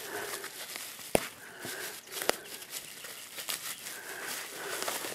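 Plastic bubble wrap crinkling and rustling as it is pulled open by hand, with two sharp snaps about a second apart.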